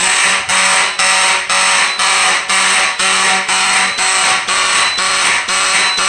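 Amseco BZ54VT electromechanical motor horn sounding a fire alarm in march-time code, about two raspy buzzing blasts a second. The owner says it does not sound too healthy and needs repair.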